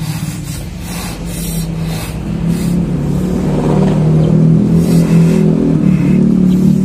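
Two rubber balloons being blown up by mouth: breathy puffs and a low buzzing drone that grows louder as they inflate.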